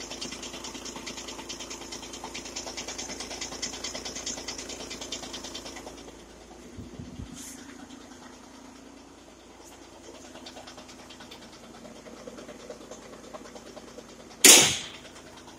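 Volkswagen Tiguan engine running at idle with a rapid rattling noise from the flywheel, louder for the first six seconds or so and then quieter. A single sharp loud knock sounds near the end.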